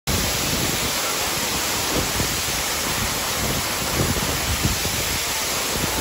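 Monsoon waterfall: heavy water pouring over a rock face and splashing onto the rocks below, a loud, steady rush.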